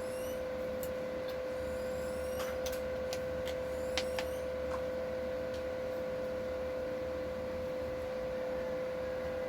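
A steady, even hum holding one pitch, with a few faint clicks and brief high squeaks in the first half.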